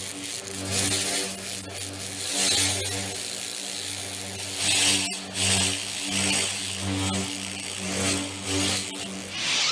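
Replica lightsaber sound board playing the Crystal Workbench sound font: a steady electric hum that swells and swooshes again and again as the blade is swung.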